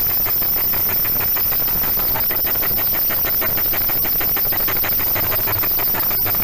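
Metal meat grinder crushing sticks of chalk: a steady, dense crackling and grinding as the chalk is forced through the grinder plate.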